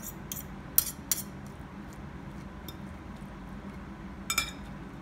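Metal fork clinking against a glass bowl while tossing a salad: a few sharp clinks in the first second or so, then a cluster of clinks just after four seconds.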